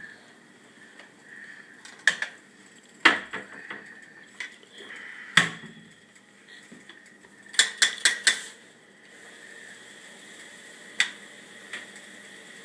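Pots, pans and metal utensils clanking in a kitchen: a few separate knocks, then a quick run of clinks, then one more.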